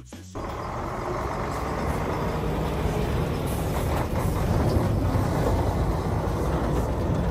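Heavy dump truck driving past close by: its diesel engine and tyres on gravel make a steady rumble that gets louder about halfway through.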